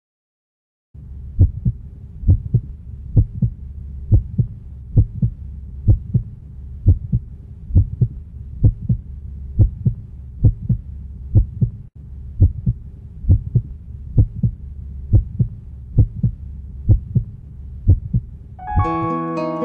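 Heartbeat: paired thumps, about one pair a second, over a low steady hum. Acoustic guitar strumming starts near the end.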